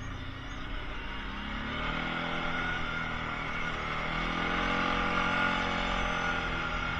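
Kawasaki Prairie ATV engine running under way, its pitch rising about two seconds in as it picks up speed, then holding fairly steady.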